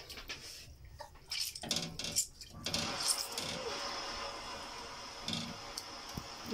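Hands stretching and kneading mozzarella curd in a steel pot of hot liquid: light clinks and knocks against the pot's metal side at first, then steady swishing of the liquid from about three seconds in.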